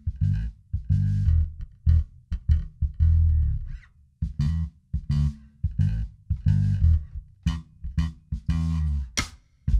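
Electric bass playing a syncopated, danceable groove solo in short, clipped notes with gaps between them. A drum kit starts coming in near the end.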